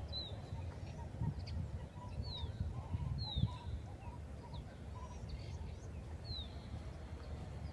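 Wild birds calling: several short, high chirps that slide down in pitch, about one every second or two, among softer short notes lower down. A low rumble runs underneath.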